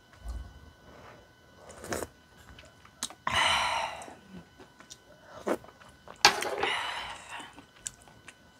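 Wooden chopsticks clicking and tapping against a bowl of skewered fish cakes, with two louder breathy hissing sounds a few seconds apart, the second starting with a sharp click.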